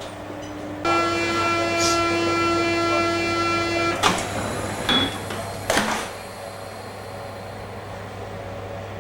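A steady buzzing warning tone sounds for about three seconds and stops abruptly. It is followed by two sharp knocks, about two seconds apart, over a constant low hum.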